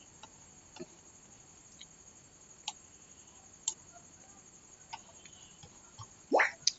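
A few faint, scattered clicks, and about six seconds in a short squeak that rises in pitch, followed at once by a brief higher one; the squeak is the loudest sound.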